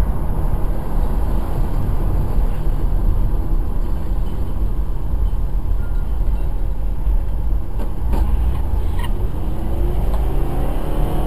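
Steady road and engine noise inside a moving car's cabin, a deep rumble at traffic speed, with a few faint clicks about eight and nine seconds in.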